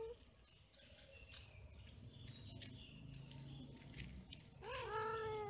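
Cats mating: one cat gives a long yowl about four and a half seconds in, rising quickly in pitch, then held on a slowly falling note for about a second. The tail of a rising call is heard at the very start.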